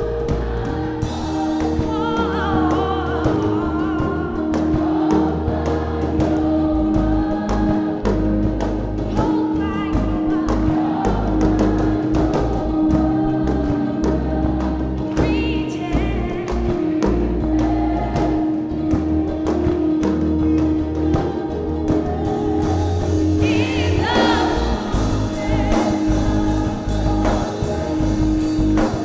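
Youth gospel choir singing with live band accompaniment: a steady drum beat under sustained bass and keyboard notes. The voices climb higher and louder about three quarters of the way through.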